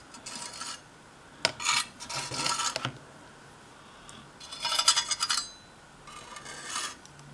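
A table knife spreading and scraping wet chia-seed paste onto a clay Chia Pet figure, in several short scraping strokes, with a light click about a second and a half in.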